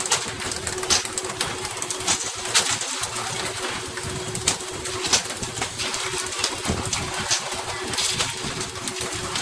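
Fish thudding onto a boat's deck and flapping, in irregular knocks about one or two a second, over the steady hiss of the boat's wake and a faint steady hum.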